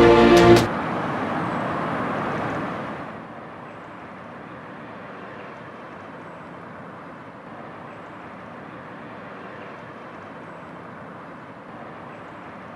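Music cuts off about half a second in, then a steady, even rushing noise without any tone, louder at first and settling lower after about three seconds.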